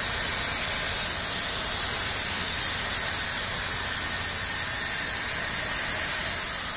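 Grain streaming steadily out of a Cornado grain spreader and pattering onto the pile in a steel bin: an even, high hiss that does not change.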